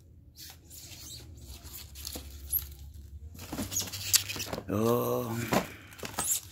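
Firework packaging being handled and unpacked: small clicks, taps and crinkles of cardboard and plastic wrap. A brief voice sound comes about five seconds in.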